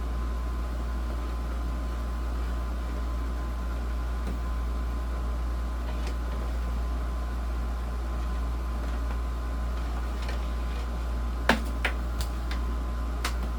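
Steady hum of a Frigidaire air conditioner running. Near the end a few sharp clicks, the first the loudest.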